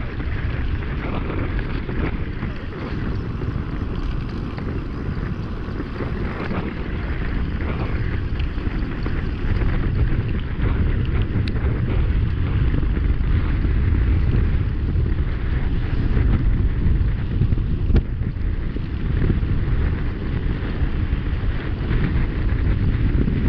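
Wind buffeting a GoPro's microphone during a fast mountain-bike descent, over the rumble of the tyres on tarmac. It grows a little louder from about halfway as the bike speeds up from about 28 to 35 km/h, and a couple of sharp clicks come through.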